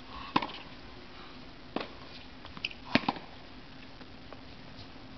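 Tennis ball struck by rackets in a rally on a hard court: sharp pops about a second and a half apart, two in quick succession about three seconds in.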